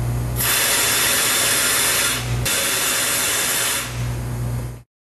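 Pneumatic oil-mist blade lubrication system of a Laguna horizontal bandsaw spraying light oil over the blade, heard as a loud hiss. It comes in two long spurts, the first from about half a second in, the second after a brief break, over a steady low hum, and cuts off suddenly near the end.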